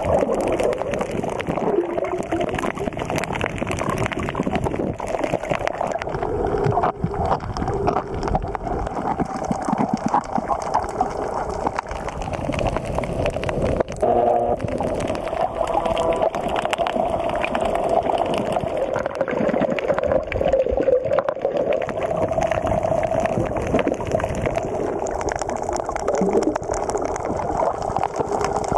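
Muffled underwater water noise and gurgling picked up by a submerged camera, continuous and fluctuating, with a brief tone about halfway through.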